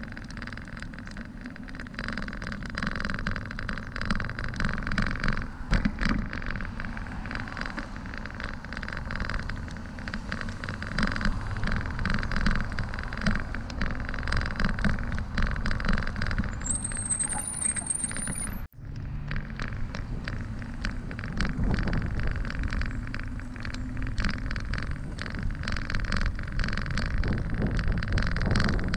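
Bicycle riding over pavement: steady wind rush on the microphone and tyre rumble, with small rattles and knocks from the bike over cracks and bumps, and car traffic passing. A brief high rising whistle comes about two-thirds through, just before the sound cuts out for an instant.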